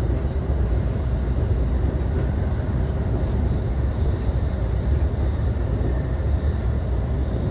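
Steady running noise heard inside a JR Takasaki Line commuter train car travelling at speed, a continuous deep rumble with no breaks.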